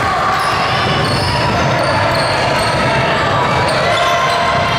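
Basketball game play in a gym: a ball bouncing and shoes squeaking on the court, with short high squeaks coming and going over a steady din of voices.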